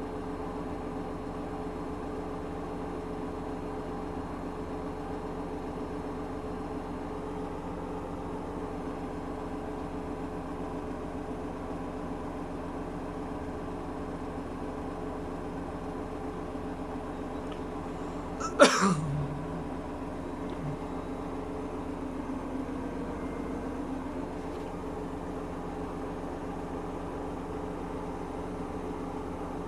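Washing machine running with a steady hum, broken once, about two-thirds of the way through, by a single sharp knock.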